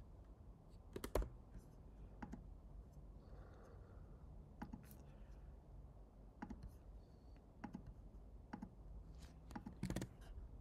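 Faint, scattered computer keyboard keystrokes and mouse clicks, about a dozen in all. The loudest comes about a second in, and there is a quick cluster near the end.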